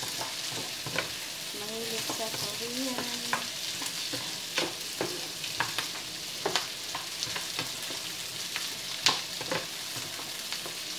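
Sliced onions and carrots sizzling in a frying pan while a spatula stirs them, with irregular clicks and scrapes as it knocks against the pan; the loudest knock comes about nine seconds in.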